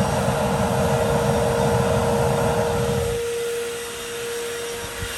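Gas burner of a homemade foundry furnace running with a low rumble, which cuts off suddenly about three seconds in as the gas is shut off. A vacuum motor on the exhaust keeps running with a steady whine.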